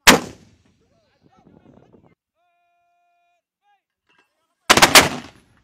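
Two 120 mm mortar firings. One sharp blast comes right at the start and dies away within about half a second. A second, longer blast with several ragged peaks comes near the end.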